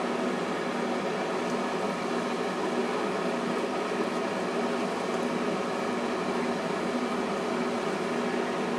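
Steady mechanical hum of a fan or appliance motor, with a few constant tones, running without change.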